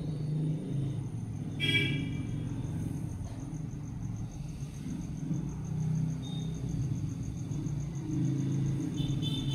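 Low, uneven background rumble, with a brief high-pitched call about two seconds in and a faint, high, rapidly pulsing tone.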